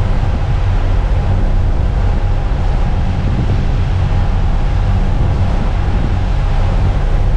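Steady low rumble of a sailing yacht running under engine, with wind rushing over the microphone.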